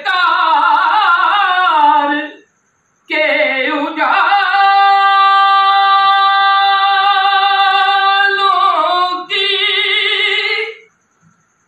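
A man singing a devotional Urdu verse (naat) solo and unaccompanied, in a high voice with wavering notes. After a short break for breath he holds one long steady note for several seconds, then sings a shorter phrase and stops.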